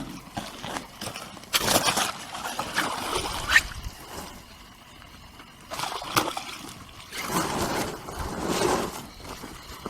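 Lake water sloshing and splashing in irregular bursts, three or so spells of louder splashing.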